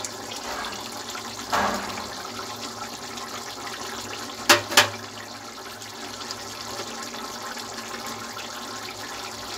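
Aloo matar curry bubbling steadily in a kadhai on a gas stove. There are two sharp knocks close together about halfway through.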